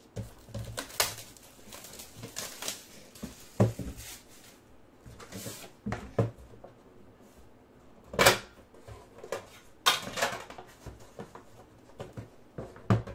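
Cardboard card box being handled and opened: scattered taps, knocks and scrapes as the lid is worked off and the inner box pulled out, with sharper knocks about eight and ten seconds in.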